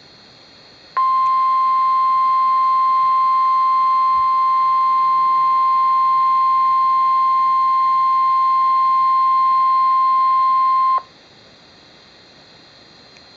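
National Weather Service (NOAA Weather Radio) 1050 Hz warning alarm tone: one loud, steady beep that starts about a second in, holds for about ten seconds and cuts off sharply, over faint radio hiss. It is a test of the alarm that switches on weather alert receivers.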